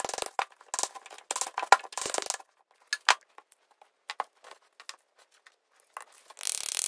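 Metal parts clinking and clattering as the old wheel bearings and seal, just driven out of a small ATV's wheel hub, are handled, with a sharp metallic knock a little under two seconds in. Near the end there is a rustling scrape.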